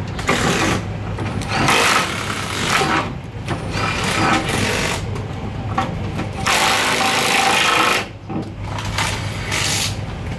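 Cordless impact wrench run in about five short bursts, each a second or so long, working bolts under a Ford Fiesta Rally2 car during a gearbox replacement.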